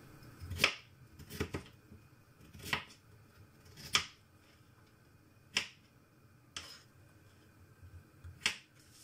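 Kitchen knife cutting peeled potatoes into chunks on a plastic cutting board: about eight sharp knocks of the blade striking the board, unevenly spaced.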